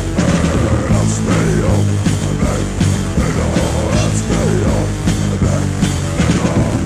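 Death metal demo recording: distorted electric guitars, bass and drums playing without a break.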